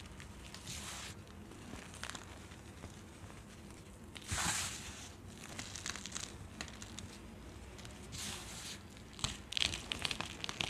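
Hands squeezing and crumbling clumps of dry baking soda: crunching, with the hiss of powder sifting through the fingers. The loudest rush of crumbling comes about four seconds in, with a run of sharper crunches near the end.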